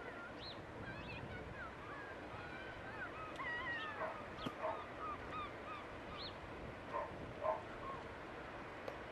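Beach ambience: a steady hiss of wind and surf with many short, high calls and cries scattered over it, busiest in the middle.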